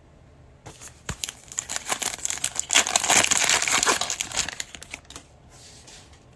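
Foil wrapper of a Panini Prizm football retail pack being torn open and crinkled by hand: a run of crackling that builds to a dense, loud crinkle in the middle and thins out about five seconds in.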